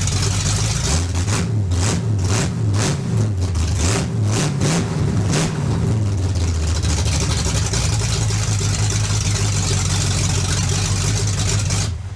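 1965 Chevrolet C10's 454 big-block V8 running. The throttle is blipped several times in quick succession over the first half, then the engine settles into a steady idle. It runs crisp, its carburettor dialed in and its vacuum leaks fixed.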